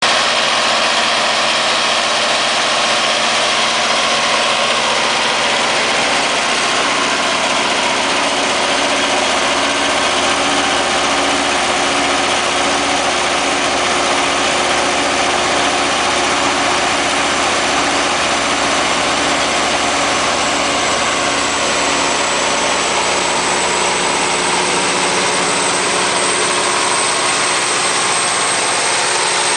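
Cummins QSK60-G7 V16 diesel engine of a 2000 kW generator set running steadily, a dense, constant engine noise with a high thin whine that rises slightly near the end.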